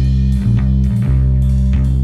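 Fuzz-heavy blues rock: a distorted electric guitar and bass riff, the low notes changing every half second or so.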